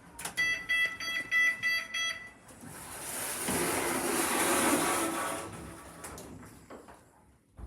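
A lift sounds a rapid run of about seven short, high electronic beeps. A rushing noise follows for about three seconds, swelling and then fading away.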